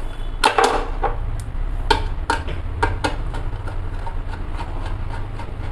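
Irregular metallic clicks and knocks of a screwdriver working loose the screws that hold a gas stove's burner, over a steady low hum.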